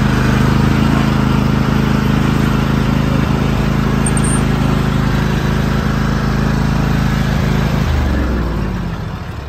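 Zero-turn riding mower engine running steadily, then shut off about eight seconds in, its note falling away as it winds down.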